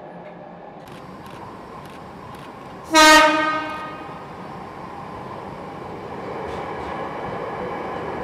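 Jakarta MRT electric metro train giving one short horn blast about three seconds in, then the steady rumble of the train running into the station and passing, growing louder toward the end.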